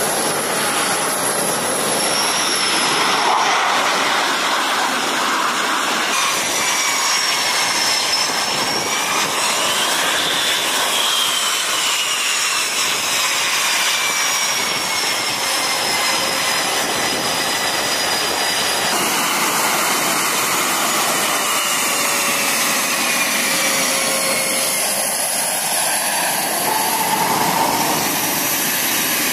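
F/A-18 Super Hornet jet engines running: a loud, steady rush with high turbine whines that glide slowly down in pitch. The mix changes abruptly twice.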